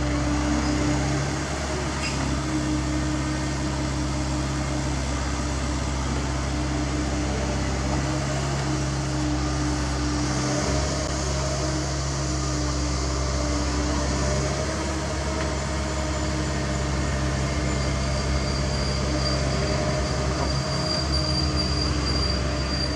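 CAT 305.5E2 mini excavator's diesel engine running steadily under working load, with a steady hydraulic whine as the boom and bucket dig through wet dirt. A thin high whistle joins the whine late on.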